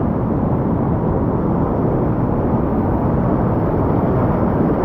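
Whitewater rapids rushing past a kayak: a loud, steady, muffled rumble of moving water.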